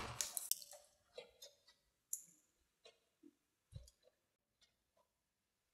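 Near silence broken by a few faint clicks and a soft knock near the end: the small sounds of handling a lip gloss tube and its applicator wand.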